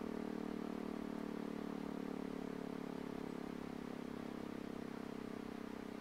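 E57 electromechanical siren coasting down after its alarm: a low, steady howl that slowly fades as the rotor loses speed, with a slight regular waver.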